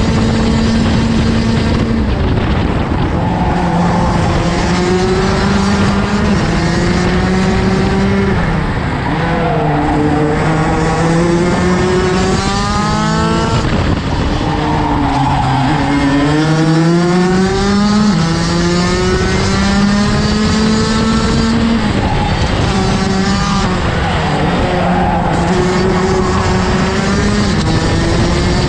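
Rotax DD2 racing kart's 125 cc two-stroke engine running at race pace, its revs repeatedly rising and falling as it accelerates out of corners and backs off into them.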